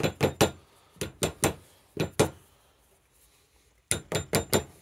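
A hammer tapping a screwdriver used as a drift, driving a new fork seal down into a motorcycle fork slider. About a dozen sharp metallic taps in quick runs of three to five, with a pause around the middle, working round the seal to seat it evenly.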